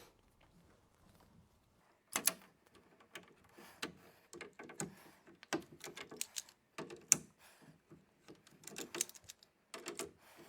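Irregular clicks and clatter of a hand PEX crimping tool being opened and worked, with crimp rings and fittings handled. The clicking starts about two seconds in, and one sharp click stands out about seven seconds in.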